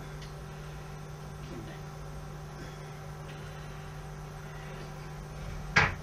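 Steady electrical mains hum, with a single sharp knock just before the end.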